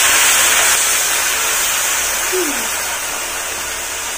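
Snails sizzling in a hot wok over a wood fire as liquid is poured onto them: a steady, loud hiss that slowly dies down.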